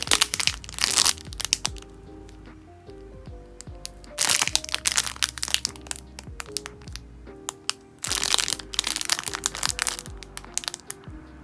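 Plastic packaging of a squishy toy being handled, crackling and crinkling in three bursts: near the start, about four seconds in, and about eight seconds in. Background music with a steady beat plays under it.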